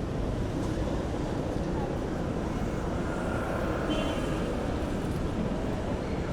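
City street ambience: a steady rumble of passing traffic with indistinct voices of passers-by mixed in.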